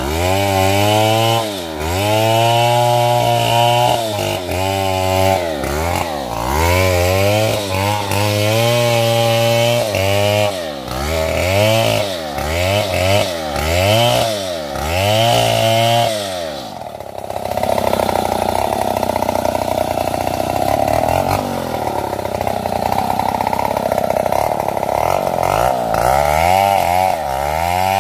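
Stihl MS070 two-stroke chainsaw cutting sengon wood. For the first half its engine speed dips and recovers about once a second. It then holds a rougher, steady note under load for about nine seconds, and the dips return near the end.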